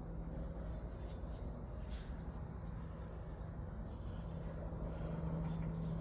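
Crickets chirping faintly in short repeated pulses over a steady low hum.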